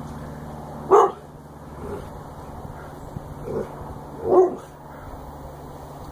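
Alaskan Malamute giving short barks in play, two loud ones about a second and four seconds in, with a softer bark just before the second.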